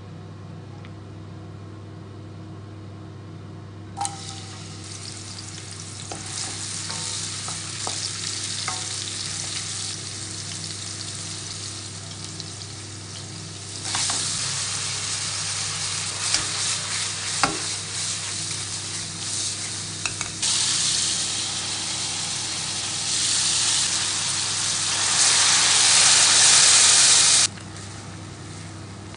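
Chopped red onion sizzling in olive oil in an aluminium frying pan. About a third of the way in it grows louder as halved cherry tomatoes are tipped in and stirred, with a few sharp knocks against the pan. The sizzle is loudest near the end and cuts off suddenly, over a steady low hum.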